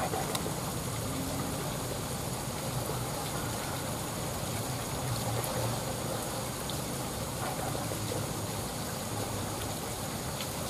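A river flowing past the bank: a steady, even rush of water.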